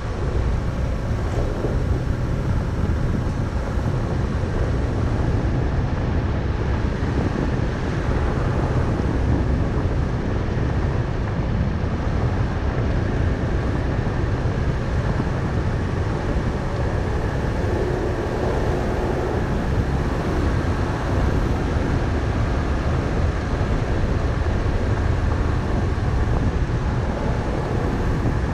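A car driving along a gravel forest road: a steady low rumble of tyres on gravel and engine noise.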